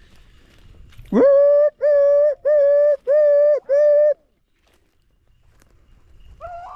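Beagle baying on a rabbit's trail: one call swoops up in pitch into a run of five even, steady-pitched calls of about half a second each.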